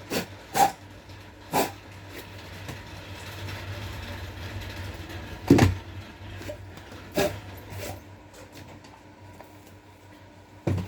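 Several sharp knocks and clunks of workshop handling, the loudest about five and a half seconds in, over a steady low hum.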